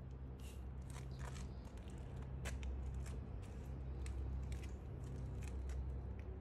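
Loose gravel clicking and crunching in short, irregular ticks as a small hamster scrambles over the stones, over a steady low hum.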